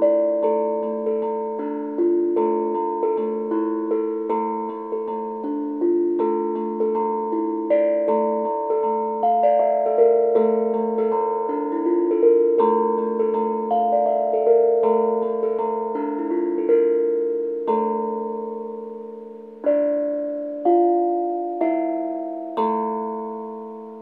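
Handmade steel tank drum (tongue drum) played with two mallets: a melody of struck notes, each ringing on and overlapping the next. Near the end the playing thins to three single strikes, spaced about a second apart, that ring out and fade.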